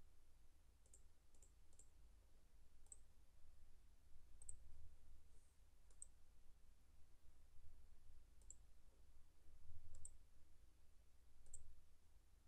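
Faint computer mouse button clicks: about nine single clicks at irregular intervals, over a faint steady low hum.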